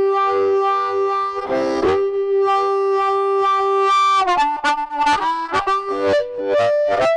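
Amplified diatonic harmonica (Hohner Marine Band in C), played with the hands cupped tightly around a Blowsmeaway Ultimate bullet microphone into a Lone Wolf Harp Attack valve preamp, giving a thick, overdriven blues amp tone. One long held note shifts briefly in tone about one and a half seconds in, then breaks into a phrase of shorter, rhythmic notes.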